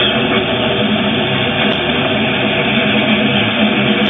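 Long-distance AM reception of WFNN Erie on 1330 kHz through a software-defined receiver in lower-sideband mode: steady hiss and static with several steady whistling tones. The station's own audio is buried in the noise of the weak transatlantic signal.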